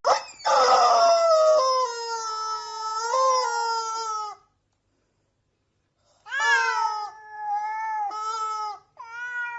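A domestic cat yowling in long, drawn-out calls. One wavering yowl lasts about four seconds, and after a silent gap, more yowls follow from about six seconds in.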